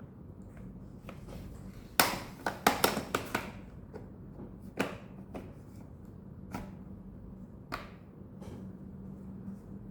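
Hands handling unboxing items, likely the power adapter and its packaging: a quick run of sharp clicks and knocks about two seconds in, then a few single taps, over a low steady hum.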